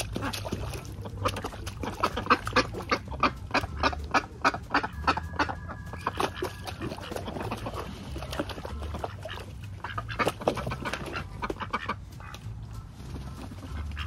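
Domestic ducks quacking in rapid runs of short calls, busiest from about a second in to five seconds and again about ten seconds in.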